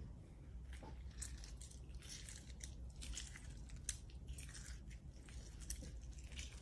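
Faint, irregular wet squishing and scraping of a metal spoon twisted into a lemon half, pressing out its juice.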